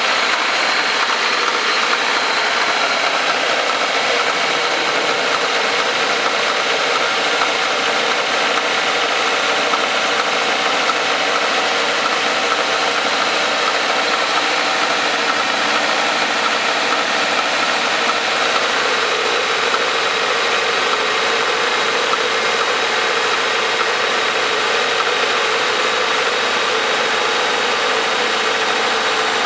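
Toyota Premio 2.0 engine idling steadily, carrying an abnormal noise from near the alternator and timing belt.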